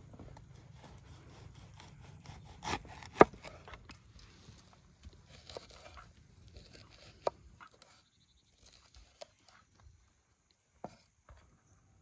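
A knife chopping bell peppers on a wooden cutting board: scattered sharp knocks of the blade striking the board, the loudest just after three seconds in, with light scraping between cuts.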